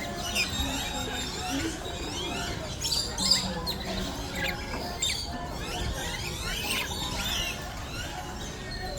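A flock of aviary birds calling constantly: many overlapping shrill squawks and chirps.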